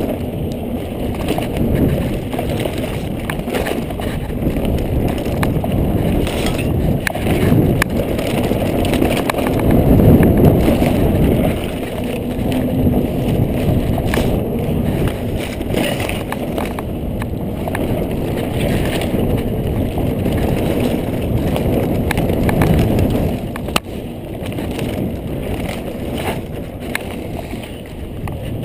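2014 Kona Process 134 mountain bike ridden down a dirt singletrack: a steady rush of wind and tyre noise on the microphone, with scattered clicks and rattles from the bike over the bumps, loudest about ten seconds in.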